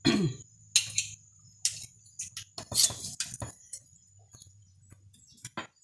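Metal spoon and slotted spoon clicking and clinking in a run of sharp, irregular knocks as boiled pamonhas are lifted out and set down on a woven sieve.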